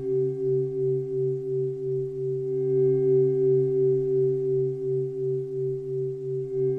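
Synthesized meditation drone of a few steady pure tones, pulsing evenly about two to three times a second.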